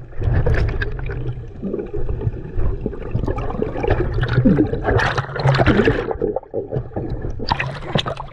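Seawater gurgling and sloshing around a camera microphone held underwater: a muffled low rumble with splashy bursts of bubbles, loudest about five seconds in and again near the end.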